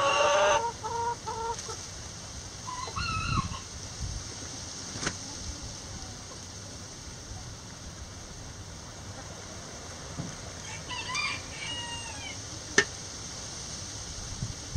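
Backyard chickens clucking and calling, with a rooster crowing right at the start and shorter calls a few seconds in and again near the two-thirds mark. A few sharp clicks break in, the loudest about 13 seconds in.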